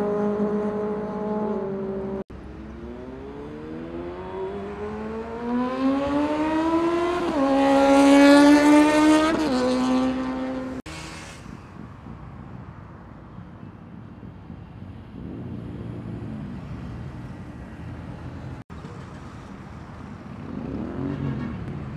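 Sportbike engine at a steady note, then accelerating hard: its pitch climbs for several seconds to a loud peak and falls away. After that comes quieter traffic noise, and a short blip of revs near the end.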